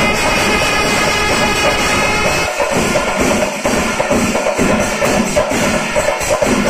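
Kerala chenda melam ensemble playing: chenda drums beaten with sticks in fast, dense strokes under clashing elathalam hand cymbals, with a held reed-pipe (kuzhal) note over the drumming for the first two seconds or so.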